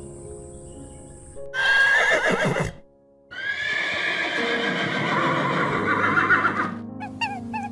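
A horse whinnying twice, a short quavering whinny and then a longer one, over background music.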